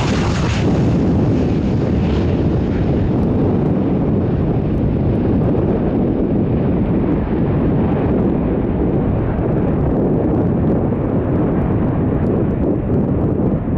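Jet airliner engines: a loud, steady rumble whose upper hiss slowly dulls toward the end, with wind buffeting the microphone.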